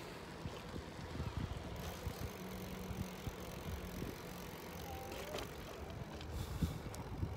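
Bicycle riding along a concrete path: steady low rumble of wind and tyre noise, with irregular light knocks from the bike going over the path.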